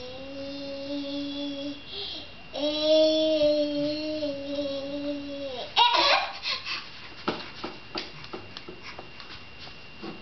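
A toddler vocalizing in two long, held, sing-song tones, then a short loud cry about six seconds in, followed by a scattering of light knocks and taps.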